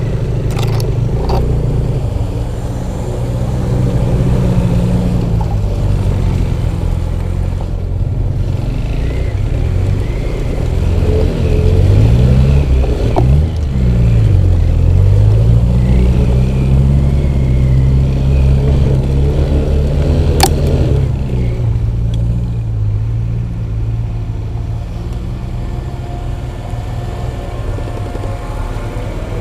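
Off-road motorcycle engine running under load through rough going, its revs rising and falling over and over, with a sharp drop and climb back about halfway through. A few short knocks sound over it.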